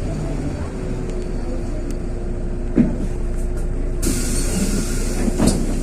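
Interior of a LiAZ 6213 articulated city bus under way: a steady low rumble of engine and road with a constant hum. There are two short knocks, about three and five and a half seconds in, and a hiss starts about four seconds in.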